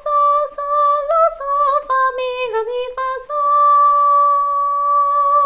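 A woman singing a phrase unaccompanied in solfège syllables: several short notes, then a long held note from about three seconds in that begins to waver with vibrato near the end.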